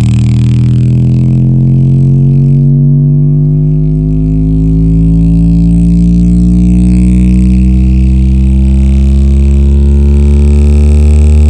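Bass-boosted electronic music played loud through a sound bar and subwoofer: a deep, buzzing bass tone that slowly rises in pitch, with distorted overtones above it.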